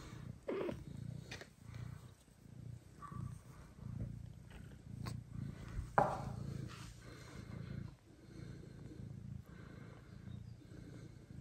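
Mother cat purring steadily, a low pulsing rumble, with a few brief high cries from the newborn kittens nestled against her, the loudest about six seconds in.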